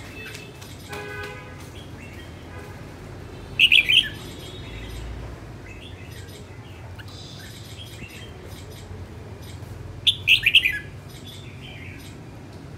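Red-whiskered bulbul singing: two short, loud song phrases, about four seconds in and again about ten seconds in, with softer calls between them.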